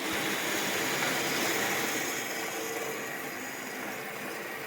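Roborock S8 robot vacuum's suction fan starting abruptly and running with a steady, even whoosh.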